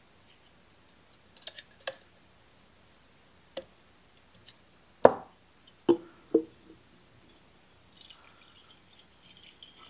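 Fuel pouring from a Stihl 023 chainsaw's tank into a glass jar, a thin splashing stream that starts about three-quarters of the way in. Before it come a few clicks and knocks as the fuel cap comes off and the saw is handled, the loudest a sharp knock about halfway.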